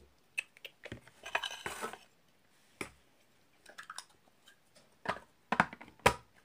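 Large plastic toy building bricks clicking and knocking against each other and the tabletop as they are handled: scattered light clicks, with a few sharper ones about five to six seconds in.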